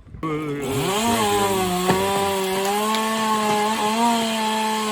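Chainsaw revving up to full speed and then held at a steady high pitch as it cuts into a pine limb, dipping slightly now and then under load. It starts suddenly just after the beginning.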